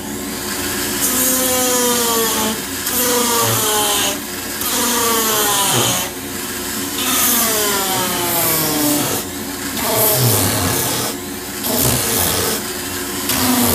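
Foredom flex-shaft rotary carver driving a Kutzall flame burr, cutting grooves into wood in repeated passes of a second or two. The motor's whine sags in pitch during each pass as the burr bites, with a rasping hiss from the cutting between.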